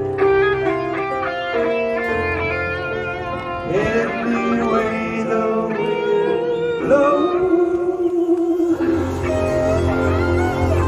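Live band playing through a large outdoor concert PA, heard from the crowd: guitar-led music, with a singer's voice sliding over it from about four seconds in.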